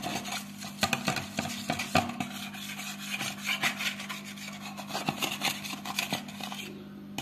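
A metal spoon stirring a thin gram-flour-and-oil batter in a metal bowl, with irregular scraping against the bowl and occasional light clinks.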